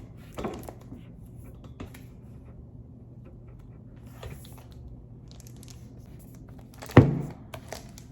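Cardboard and paper packaging being handled: scattered rustles and scrapes, with one sharp knock about seven seconds in followed by a few small clicks.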